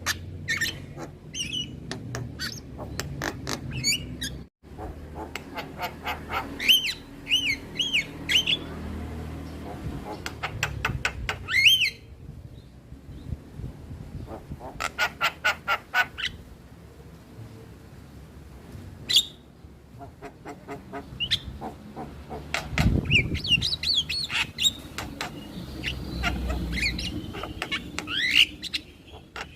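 Male Javan myna (jalak kebo) calling in bursts: rapid strings of harsh clicks and squawks mixed with short whistled notes that rise and fall, over a low rumble.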